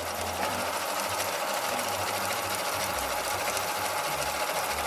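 Husqvarna 2000 sewing machine running steadily at speed, sewing a zigzag stitch with a fast, even ticking. The zigzag mechanism, newly repaired, is now working.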